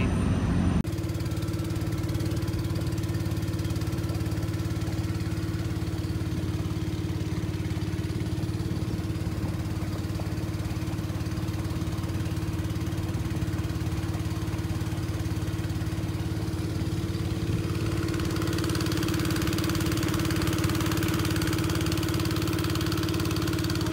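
Motor of a small wooden riverboat running at a steady speed under way, an even unchanging drone. A rushing hiss of water and wind grows louder about three-quarters of the way through.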